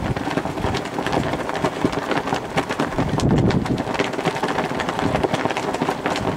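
Wind buffeting the microphone, a steady rushing noise full of irregular crackles.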